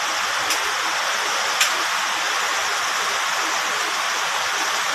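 Steady hiss of an electric fan running, with two faint clicks about half a second and a second and a half in.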